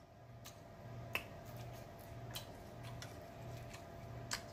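Quiet chewing: a soft low pulse about twice a second with a few sharp mouth clicks and smacks, from a man eating sausage from a seafood boil.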